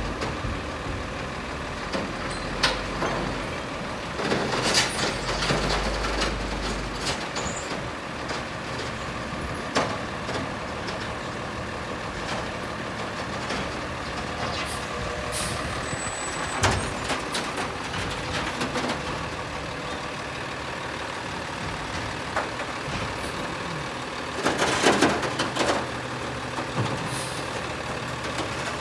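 Automated side-loader garbage truck on a Crane Carrier (CCC) chassis running steadily while it works the curb, with several short hisses and clanks; the loudest comes about twenty-five seconds in and lasts a second or two.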